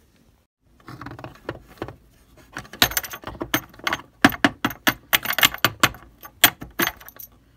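Small metal toy bucket clinking and rattling as a plastic model horse's head knocks and scrapes against it: a quick, irregular run of sharp metallic clinks, sparse at first and coming thick and fast from a few seconds in.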